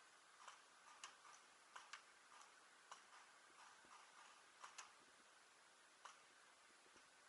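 Faint, sharp pops at irregular intervals, about a dozen, from paintball markers firing at a distance.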